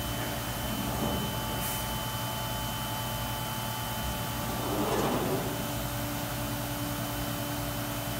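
CNC router's spindle running as its cutter trims around a formed plastic part, a steady high whine over a constant machine hum. The noise swells briefly about five seconds in.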